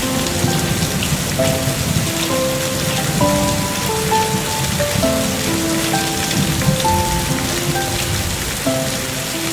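Steady rain falling, with a slow, gentle melody of single held notes playing over it.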